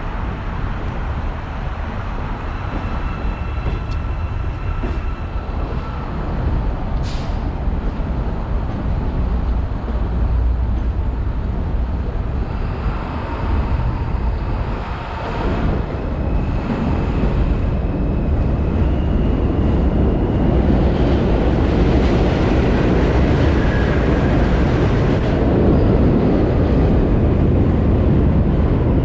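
New York City subway train on the elevated line: a continuous rail rumble with a few faint steady tones above it. About halfway through it dips briefly, then grows louder and fuller.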